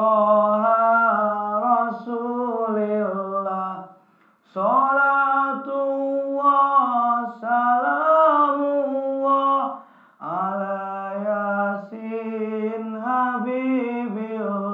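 A single male voice chanting an Islamic devotional melody unaccompanied, holding long, ornamented notes in phrases that break off briefly about four and ten seconds in.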